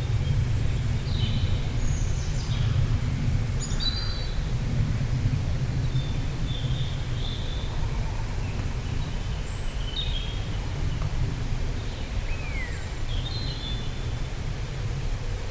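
Soft wind blowing as a steady low rumble, with birds chirping on and off over it: short high chirps and whistles, one of them a falling whistle near the end.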